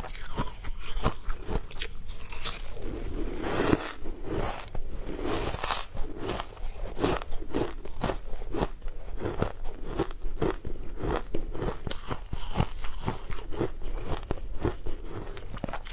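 Close-miked crunching and chewing of crushed purple ice: a steady run of crackling bites and chews.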